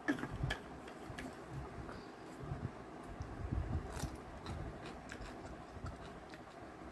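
Close-up eating sounds: chewing of chicken curry and rice, with irregular small wet clicks of the mouth and soft low thumps.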